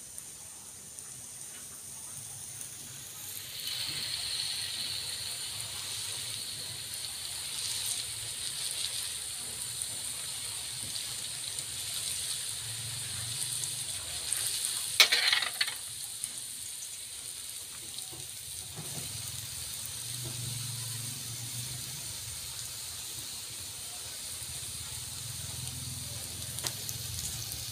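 Kembang goyang (rosette cookie) batter frying in hot oil in a wok: a steady sizzle comes in a few seconds in and holds, with one loud, sharp flare of sizzling about halfway through.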